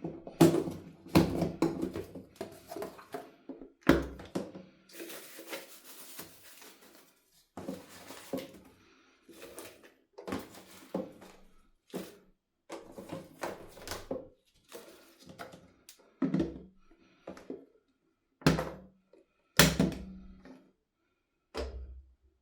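Household bottles and containers being picked up and set down on a bathroom shelf unit in a small, echoing room: a run of irregular knocks and thunks, with a stretch of rustling noise about five seconds in.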